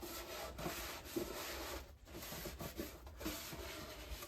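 A rough scraping or rubbing noise in two long strokes, with a short break about two seconds in.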